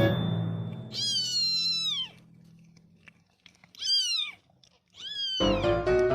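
A cat meowing three times, high-pitched, each call falling in pitch, the first about a second long and the other two short. Background music fades out at the start and comes back near the end.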